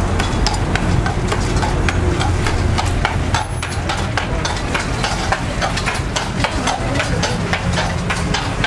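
Horse's hooves clopping on the street pavement as a horse-drawn carriage walks past, a few sharp strikes a second, over a steady low rumble of vehicle engines idling in city traffic.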